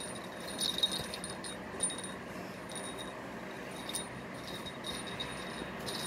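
A small jingle bell jingling in short, irregular shakes, several times, over a steady background whir.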